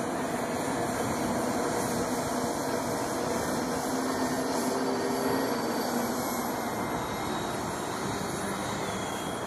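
Electric ducted-fan power of a Horizon Hobby Su-30 radio-control model jet in flight on its landing approach: a steady rushing whine that swells a little around the middle and eases toward the end.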